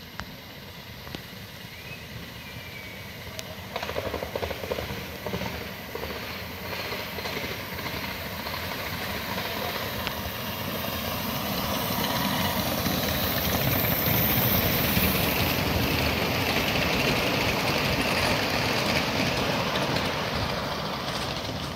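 Ridable live-steam miniature locomotive pulling a train of riders' cars along the track, growing louder as it nears and loudest as the locomotive and its cars roll past.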